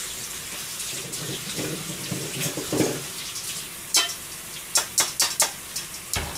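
Kitchen tap running as pea shoots are rinsed under water, with a handful of sharp clicks and knocks in the second half.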